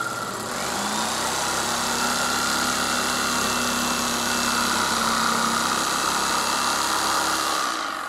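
Electric jigsaw cutting through a cedar board, its motor pitch rising about a second in, then running steadily through the cut and stopping near the end.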